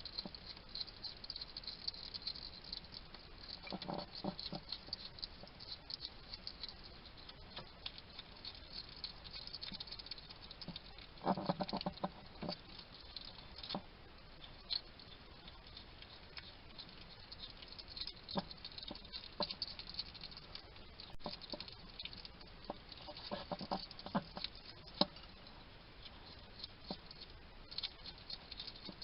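A wild hedgehog eating, with a continuous run of small crunching and clicking chews. Three times, at about four, twelve and twenty-four seconds in, it breaks into a short burst of low chattering, its snuffling 'talk' while it feeds.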